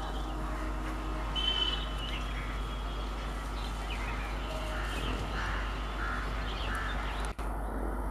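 Crows cawing several times over a steady low hum.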